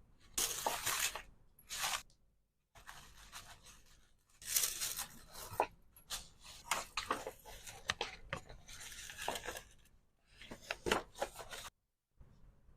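Hand-handled packaging crinkling, rustling and tearing, with small sharp clicks and taps, in several irregular bursts. The sound cuts off abruptly to silence twice.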